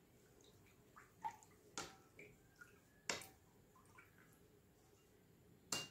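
A metal utensil stirring ginger water in a bowl: a few soft clinks and splashes against the bowl, with near silence between them.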